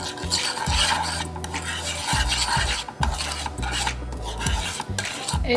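Wooden spoon stirring and scraping dry granulated sugar around a frying pan, a steady rasping scrape in repeated strokes. The sugar is being heated dry, with no water, to burn it into a dark caramel colouring, and is still loose granules at this stage.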